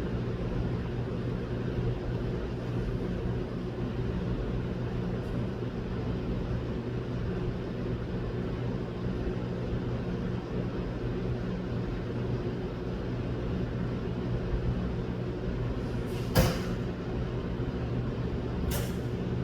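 Steady low mechanical hum, with two short sharp clicks near the end, the first the louder.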